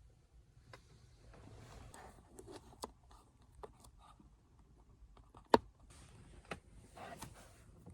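Hands pressing and holding a stick-on paddle shifter against a car's steering wheel: faint rustling and scattered small clicks, with one sharp click about five and a half seconds in and a softer one a second later.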